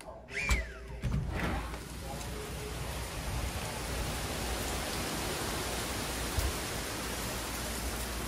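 A door opening, with a short falling squeak about half a second in. Then steady rain falling on pavement and foliage.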